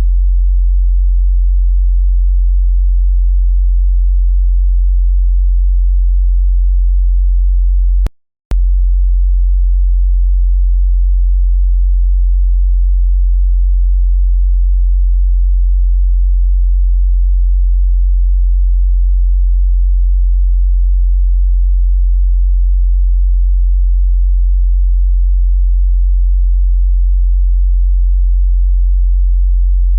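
Steady 45 Hz sine-wave bass test tone for subwoofers, one pure low hum that drops out briefly about eight seconds in and then resumes.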